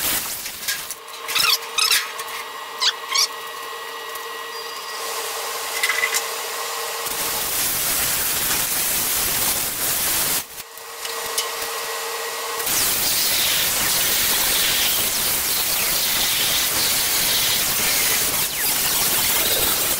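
A small grinder with a cut-off wheel running and cutting through the rusty steel of a truck roof panel, with a burst of compressed air from a blow gun partway through. The tool's sound changes several times as it comes on and off the metal.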